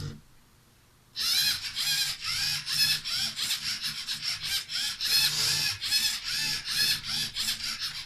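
LEGO EV3 Technic motors of a homemade CNC pen plotter whirring in quick short strokes, about three a second, each a brief whine that rises and falls in pitch as the machine starts and stops along the straight segments of a Greek key pattern. They start about a second in, after near silence.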